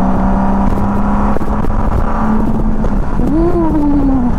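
1999 Honda Valkyrie F6C's 1500cc flat-six engine running at cruising speed, with wind rushing past. About three seconds in, the engine pitch rises and then falls back.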